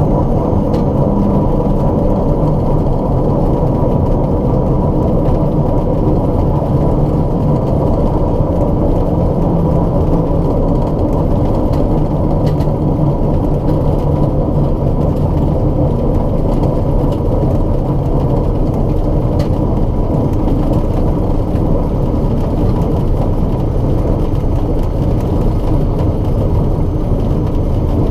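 Steady cockpit noise of a light single-engine plane's piston engine running while taxiing on the ground, with the metal grinding and vibration that the owner suspects comes from low main landing gear oleo pressure.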